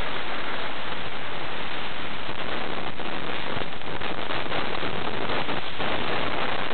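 Steady rushing noise picked up by the small on-board FlyCamOne camera's microphone, with no motor running.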